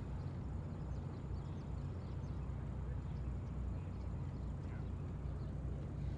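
Sailboat's inboard engine running steadily at low revs under way, a constant low rumble.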